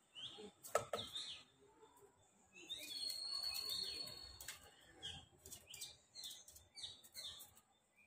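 Small bird chirping in short, repeated calls while it flutters and pecks at a car's side window, with sharp taps on the glass. The loudest tap comes just under a second in. This is typical of a bird attacking its own reflection.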